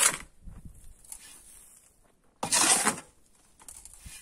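Shovel scooping sand and gravel from a metal box, scraping through the load twice: once at the very start and again about two and a half seconds in, each scrape lasting about half a second.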